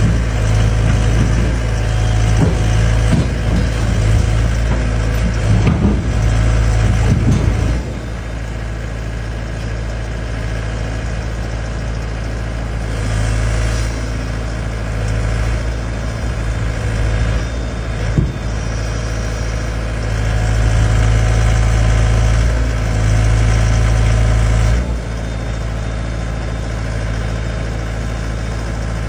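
XCMG XE60G mini excavator's diesel engine running steadily, working harder for spells and dropping back, as the machine hauls itself onto a dump truck with its boom and tracks. A single sharp knock sounds well past halfway.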